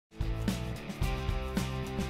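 Instrumental music with held chords and a few struck beats, starting abruptly just after the beginning.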